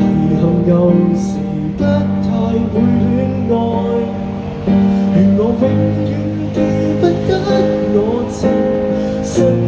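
Live acoustic guitar music: an instrumental passage of a slow Cantopop ballad, a melody line with sliding notes over strummed chords.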